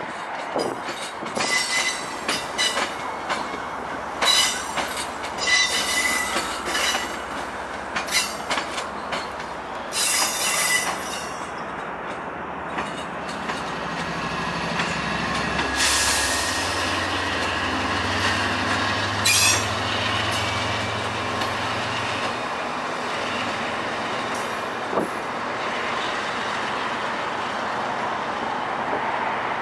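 Bi-level commuter rail coaches rolling slowly through yard track, their wheels squealing in repeated short high screeches over the first dozen seconds. About halfway through, a low steady drone from the train's MPI HSP46 diesel locomotive rises under the rolling noise, with one more sharp squeal partway through it.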